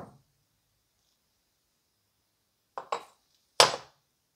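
Cold-blued steel parts of an antique iron set down on a wooden tabletop: a knock right at the start, a quick double knock near three seconds in, then a louder single knock just after.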